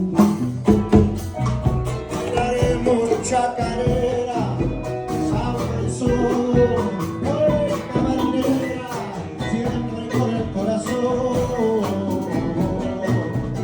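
Jam-session music: a singing voice over hand percussion and other instruments, with sharp drum strikes most prominent in the first second.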